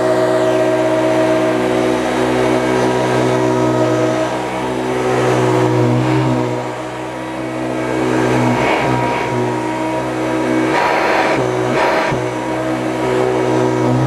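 Hoover Turbopower U1050 upright vacuum cleaner running, pushed back and forth over carpet strewn with sugar. The motor hums steadily, with two short rougher rushes of noise about nine and eleven to twelve seconds in.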